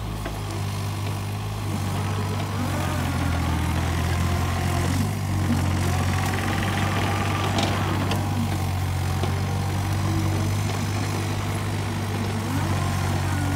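Takeuchi TB135 mini excavator's diesel engine running steadily at working speed, with a fainter whine from the hydraulics that rises and falls as the arm and bucket move.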